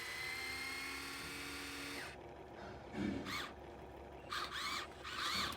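A small electric motor whining steadily for about two seconds, then a few short high chirps that rise and fall in pitch.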